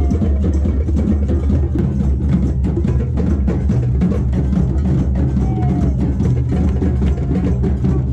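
Drum circle: many hand drums struck together in a dense, driving rhythm, with deep bass drums underneath, loud and unbroken.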